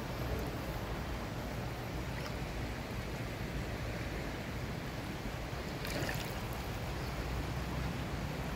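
Steady rush of shallow floodwater flowing down a waterlogged street, with wind rumbling on the microphone.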